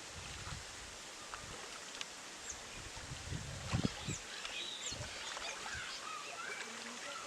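Birds chirping over a steady outdoor background hiss, with a few low knocks a little past the middle.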